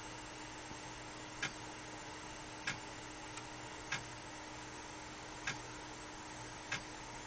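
Sharp single clicks from the computer hardware under test, repeating at a fairly even pace of about one every second and a quarter, over a steady electrical hiss and hum.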